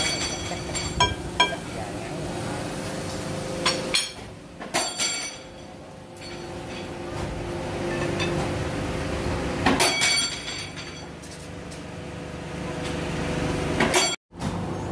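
Steel-bar machinery running with a steady hum, broken by sharp metallic clanks and clinks of steel rods knocking together. The clanks come in clusters: a few near the start, some around four to five seconds in, and more around ten seconds in.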